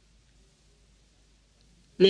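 Near silence: faint steady hiss with a low hum underneath.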